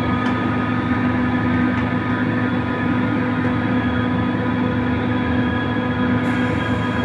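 Compressor running steadily: a loud, even mechanical hum with a strong low tone and fainter higher tones above it. A faint high hiss joins in about six seconds in.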